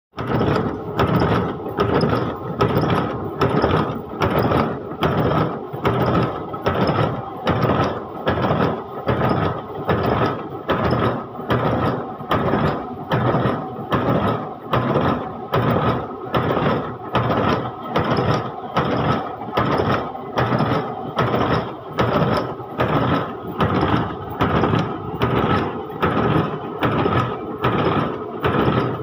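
Automatic wire-forming machine bending wire into ceiling-fan hooks, running in a steady, repeating cycle of mechanical strokes, a little faster than one a second.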